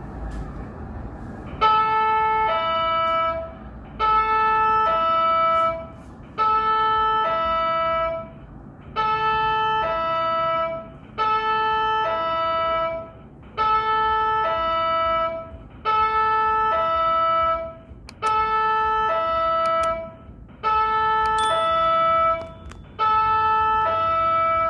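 Broken MTA subway countdown clock sounding an electronic two-note alert over and over, a higher note dropping to a lower one, about once every two and a half seconds; the repeating alert is a sign of the clock's malfunction.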